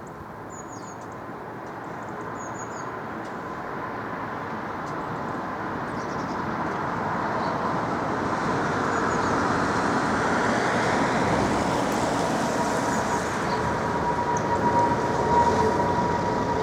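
Boeing 777-200ER jet engines at take-off power on departure, a steady rushing roar that grows louder, with a thin screeching tone standing out more strongly in the second half.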